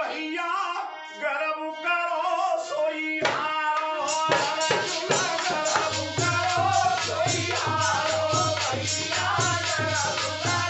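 Indian folk devotional song: a man singing over a sustained harmonium. About four seconds in, a barrel hand drum (dholak) joins with a fast, steady beat.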